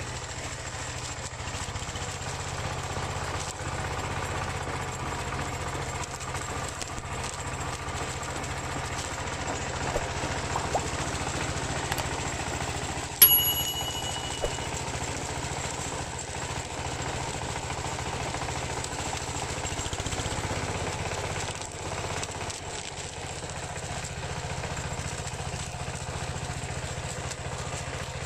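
Single-cylinder diesel engine of a Dongfeng-powered two-wheel hand tractor running steadily. About 13 seconds in there is one sharp metallic knock with a brief ring.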